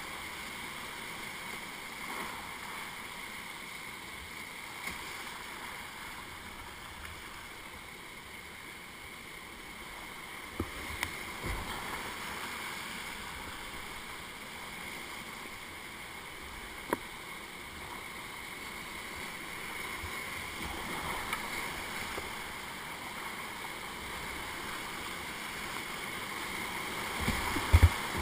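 Steady rush of high, muddy whitewater pouring over a river rapid. A few sharp knocks come partway through, and two louder thumps come near the end.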